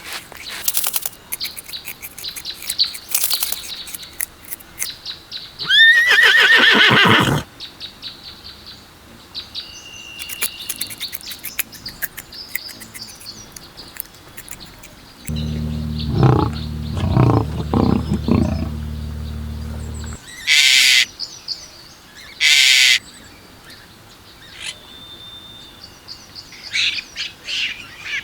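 Small birds chirping, with several louder animal calls in between, the longest lasting about a second and a half, and a low, rough call running for several seconds past the middle.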